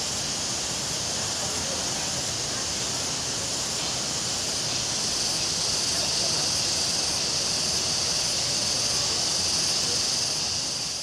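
Steady high-pitched hiss of outdoor forest ambience, growing a little louder about halfway through.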